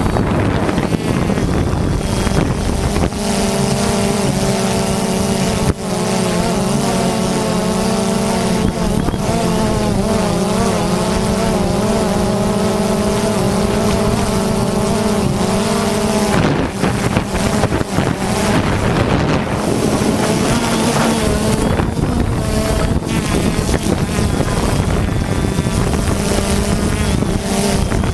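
Multirotor drone's electric motors and propellers buzzing steadily in flight, the pitch wavering up and down as the motors speed up and slow down. Wind noise on the microphone underneath.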